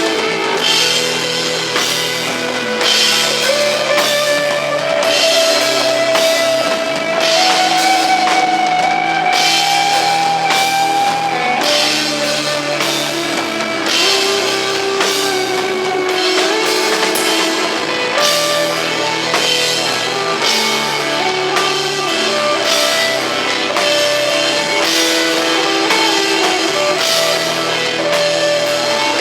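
Rock band playing live: a steady drum-kit beat with cymbals under long, held electric guitar notes that step from pitch to pitch, over a bass line.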